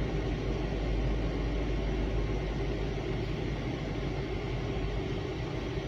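Freight train rolling past: a steady rumble of railcars on the rails.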